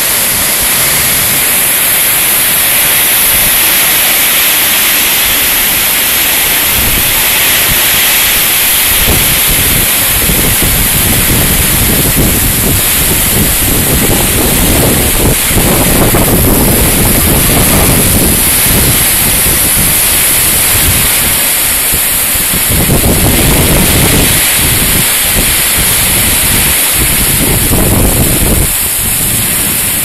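Heavy tropical downpour in a storm: a steady roar of rain pouring off roof edges and splashing onto concrete. From about seven seconds in, gusts of wind add surging low rumbles on the microphone.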